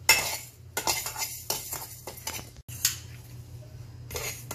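Steel spoon scraping and stirring raw rice grains around a dry, non-stick kadai as the rice roasts on low heat, a run of repeated scrapes with short pauses.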